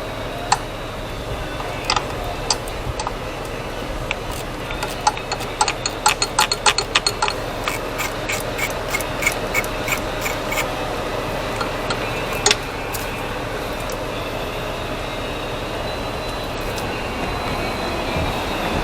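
Sharp clicks and taps over a steady hum. They come in a quick run of about five a second near the middle, then slow down and thin out, with a single louder click a little later.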